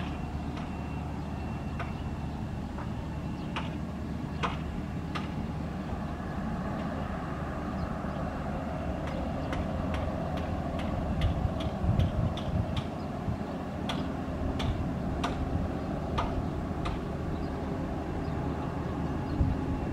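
Jet engines of a taxiing Bombardier CRJ1000 regional jet: a steady low rumble that swells a little around the middle. Irregular sharp clicks are scattered throughout.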